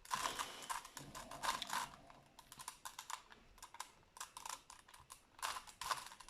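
Rubik's cube being turned, its plastic layers clicking in quick runs. The clicking is busiest in the first two seconds and again near the end, sparser in between.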